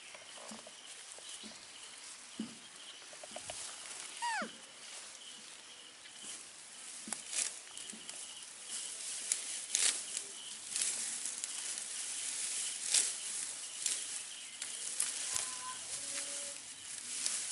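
Grass rustling and crackling as it is brushed and pulled, over a steady insect trill. About four seconds in, a single short squeal drops steeply in pitch.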